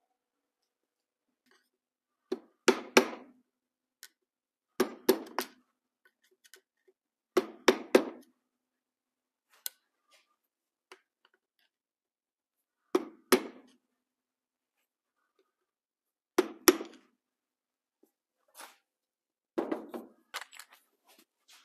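Sharp metal knocks from a hand tool working at the clutch hub of a stripped Suzuki TS185 engine. They come in about six short clusters of two or three quick strikes, a few seconds apart.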